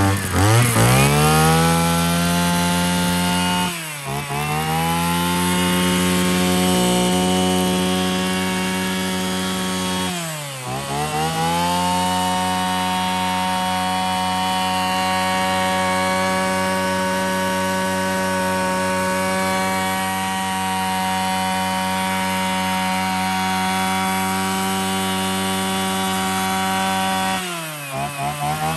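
Mitsubishi TL33 brush cutter's 33 cc two-stroke engine running hard at high revs. It revs up at the start, then the revs dip and climb back about four seconds in, about ten seconds in, and near the end.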